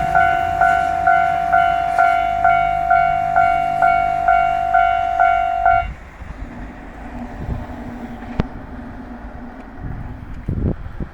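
Japanese level-crossing warning bell ringing in a steady rhythm, about two strikes a second, then stopping about six seconds in, as it does once the train has cleared the crossing. A quieter low rumble and hum follow, with a few thumps near the end.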